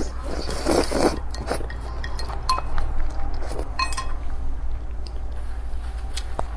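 Eating sounds: utensils clinking a few times against a dish, with chewing of noodles in between. A steady low hum runs underneath.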